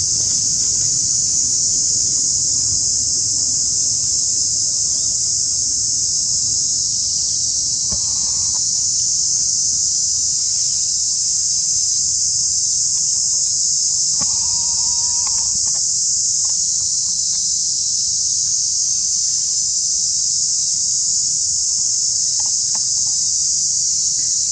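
Loud, steady, high-pitched drone of insects that never lets up. A short pitched call cuts in briefly about two-thirds of the way through.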